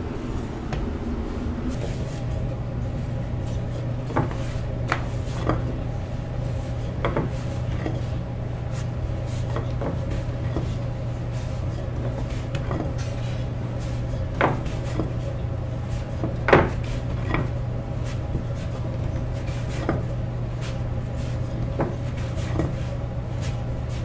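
Irregular sharp knocks and clacks of bread-making tools and utensils at a balloon bread stall, about a dozen spread out, the loudest about two-thirds of the way in. Under them runs a steady low hum.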